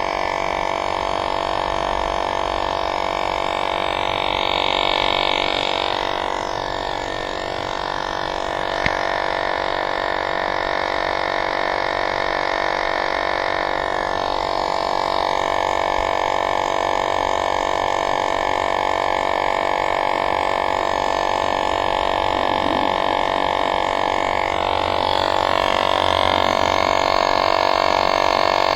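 Electric tire inflator running steadily with a continuous droning hum while it pumps up an e-bike tire.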